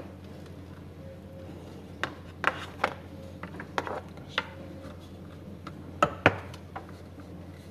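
Hands handling a cable around a desk and monitor: an irregular scatter of light clicks and knocks, the sharpest two close together near the end, over a steady low hum.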